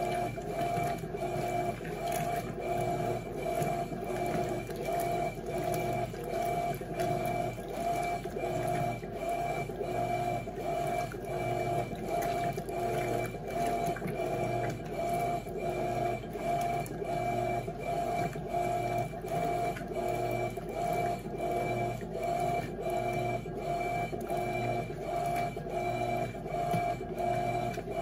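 Electrolux LT12F top-loading washing machine agitating a load in water: the motor and transmission whine and swish in a steady back-and-forth rhythm, a little more than one stroke a second, as the agitator reverses.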